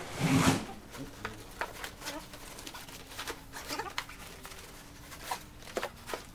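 Fabric rustling and light knocks as a soft bag is pushed and squeezed into an aluminium motorcycle pannier that it doesn't quite fit, with a louder rush of rustling at the start and scattered small clicks after.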